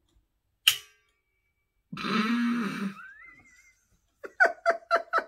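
A beer cap gun fires with one sharp snap about a second in, launching the bottle cap astray. A loud startled exclamation follows, then a man's laughter near the end.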